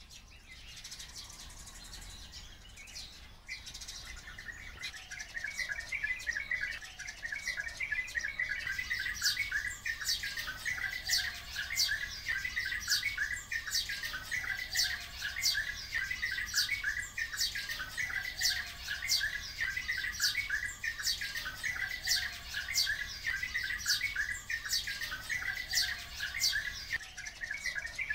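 Flock of Oriental white-eyes and sparrows calling: a dense, steady chatter of chirps, joined about nine seconds in by sharp, falling calls repeating more than once a second.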